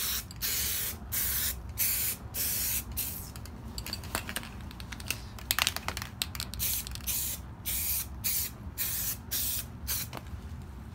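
Aerosol spray can of primer hissing in a dozen or more short bursts, one per pass across a car body panel, as a second coat goes on. A few sharp clicks come about halfway through.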